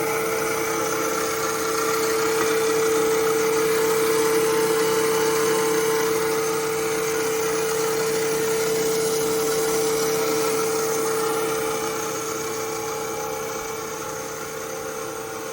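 Parker Majestic B-53 internal grinder running under power: a steady machine hum with one strong, even tone and a haze of higher whine. It grows gradually quieter over the last few seconds.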